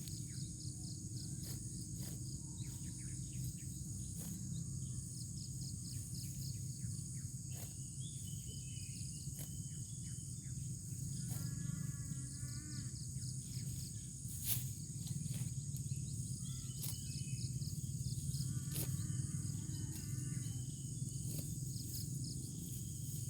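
Field insects, crickets among them, trilling steadily at a high pitch over a low steady hum, with scattered sharp clicks and a couple of brief pitched calls.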